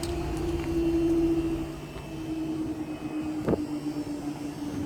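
Class 66 diesel locomotive's two-stroke V12 engine running as the light engine moves away, a steady drone that sags slightly in pitch. A single knock about three and a half seconds in.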